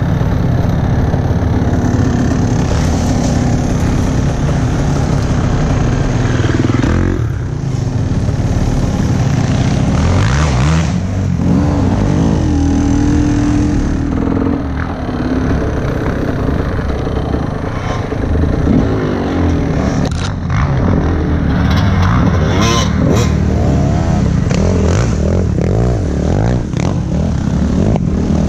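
Enduro dirt bike engine close to the on-board camera, revving up and down as the bike is ridden along a rough dirt trail.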